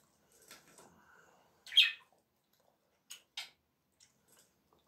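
A caged pet bird gives one loud, short chirp a little under two seconds in. Two fainter short clicks follow about a second later, over a soft rustle of food being picked apart by hand at the start.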